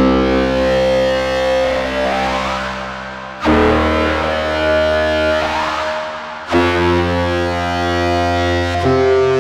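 Elektron Analog Four MK2 analog synthesizer playing a sustained chord patch with a deep bass, a new chord struck three times about every three seconds, the brightness sweeping upward through each chord.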